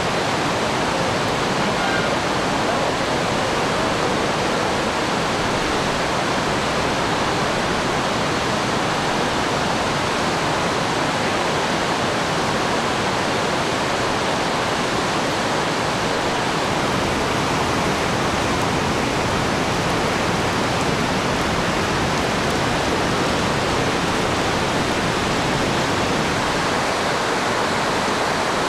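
A swollen river in flood rushing past: a steady, unbroken noise of fast-moving water that does not rise or fall.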